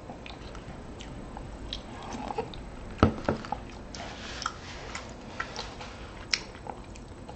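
Close-miked eating: chewing and wet mouth clicks on a mouthful of chunky soup, with two sharp knocks about three seconds in.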